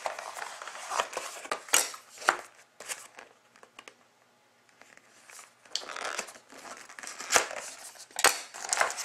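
Plastic shrink wrap crinkling and tearing as it is pulled off a cardboard hockey card box, with sharp rustles and clicks from handling the box. It goes quiet for a moment about halfway through, then the rustling picks up again.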